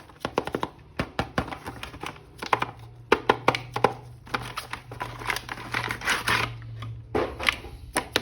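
Plastic toy and its packaging being handled and unboxed: a run of sharp irregular clicks and taps mixed with short rustling bursts.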